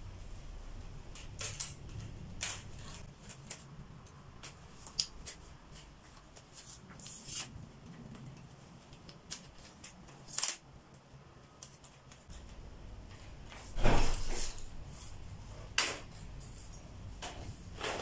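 Scattered clicks and knocks of a metal-legged camera tripod being handled and set up: leg latches snapping and the legs knocking together, with a louder clatter late on.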